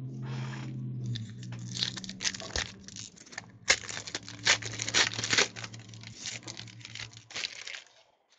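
A foil wrapper of a 2014 Panini Prizm trading-card pack being torn open and crinkled by hand: a run of crackling tears and crumples, loudest in the middle, dying away near the end.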